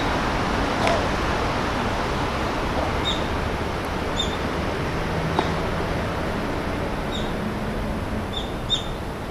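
Steady outdoor background noise with a handful of short, high chirps from a small bird, a few at a time, between about three and nine seconds in.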